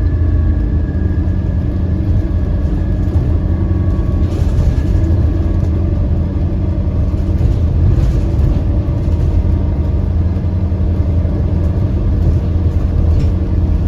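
Alexander Dennis Enviro 400MMC double-decker bus under way: a steady low engine and drivetrain hum, with a high whine that fades about four seconds in. The bus has loud axles and a turbo whine, which the uploader takes as signs that it is worn out.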